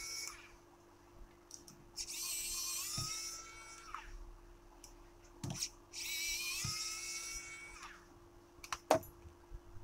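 A small high-speed electric motor whining in two bursts of about two seconds each, its pitch rising briefly as it spins up. A few short clicks and taps fall between the bursts, the sharpest near the end.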